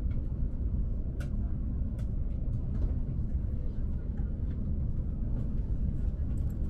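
Steady low rumble of a train, with scattered light clicks and knocks over it.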